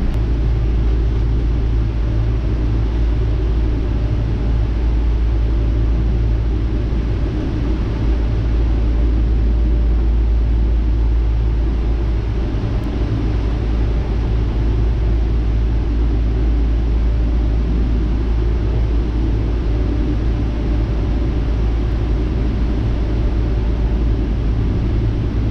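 Steady low rumble heard inside the cabin of a Boeing 777-200ER taxiing with its Rolls-Royce Trent 892 engines at idle.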